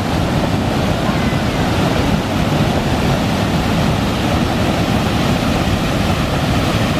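River water pouring over a weir, a steady, loud rush of falling water.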